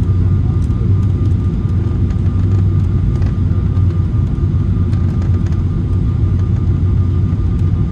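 Steady cabin noise of a Boeing 777-300ER on approach, heard from a window seat: a low drone from its GE90 engines and the airflow, with a faint steady whine above it.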